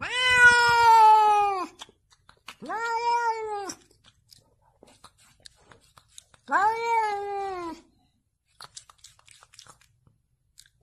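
Domestic cat meowing: three long, drawn-out meows a few seconds apart, the first the loudest. Faint clicks and rustles fall in the pauses between them.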